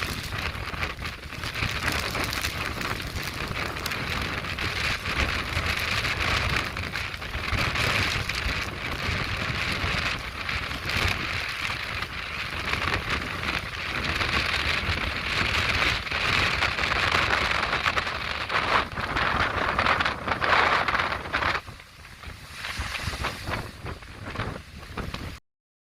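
Strong gusting wind buffeting the microphone over the hiss and rush of stormy surf breaking on rocks. It eases a little near the end and then cuts off abruptly.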